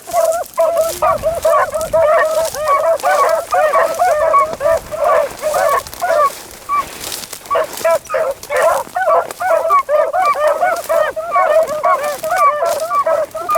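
A pack of beagles baying in full cry on a rabbit's trail, many dogs giving tongue at once in a steady stream of short overlapping calls.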